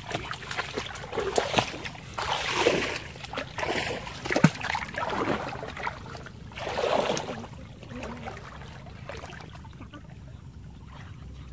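Water splashing and sloshing around legs as people wade through shallow marsh water, in several bursts, with a sharp click about four and a half seconds in; quieter and steadier over the last few seconds.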